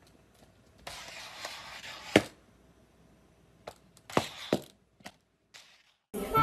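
Clear plastic cup stuck over a cat's head knocking against a tiled floor and wall: a stretch of soft scraping, then a sharp knock about two seconds in and several more knocks around four to five seconds in.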